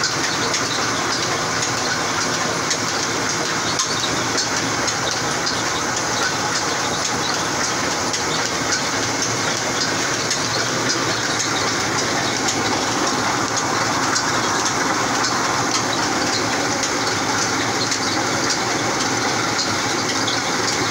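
Oil expeller running steadily: a continuous mechanical din with rapid, irregular clicking.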